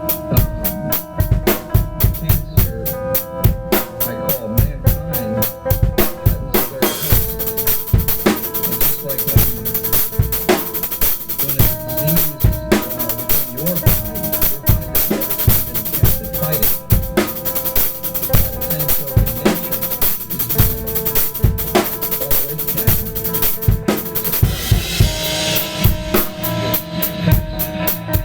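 Improvised drum-kit playing, with rapid bass drum, snare and rimshot strikes and a cymbal wash building after the first several seconds. Underneath are held pitched notes that change every few seconds.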